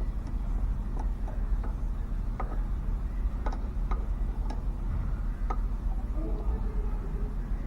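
Irregular light metallic clicks and ticks as piston and connecting-rod parts are handled and fitted together, over a steady low hum.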